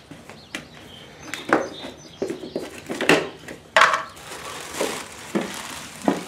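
Lid of a small plastic pail being pried open by hand, giving a run of sharp snaps and clicks as the rim comes free, then knocks as the lid is set down and the plastic bag of powder inside rustles near the end.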